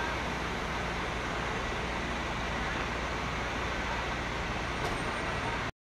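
Steady diesel engine noise of heavy machinery, a low rumble under an even hiss, which cuts off suddenly near the end.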